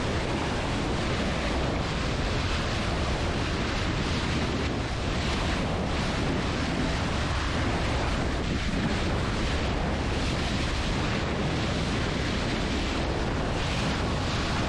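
Bow wave rushing and splashing steadily around the bulbous bow of a steel motor cruiser under way, with wind buffeting the microphone.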